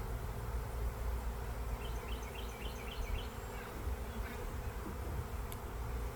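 Honeybees buzzing around an open hive close to the microphone, with a short run of high chirps about two seconds in and a single sharp click near the end.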